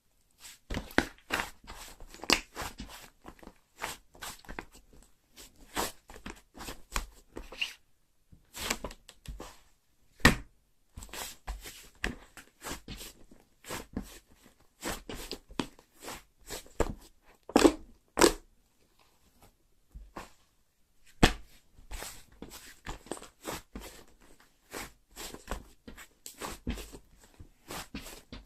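Slime being squeezed, stretched and poked by hand, making a fast irregular run of sticky clicks and pops, with two short pauses about 8 and 20 seconds in.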